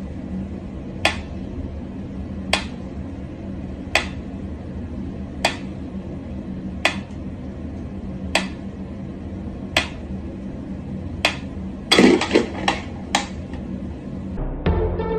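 Mechanical pendulum metronome ticking slowly and evenly, about one tick every second and a half. A short clatter of several louder knocks about twelve seconds in.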